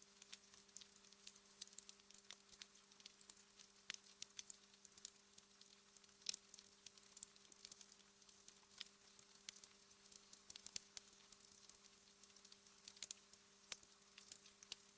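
Wood fire crackling in a fireplace: frequent small, quiet snaps and pops at irregular intervals, with one louder pop about six seconds in, over a faint steady low hum.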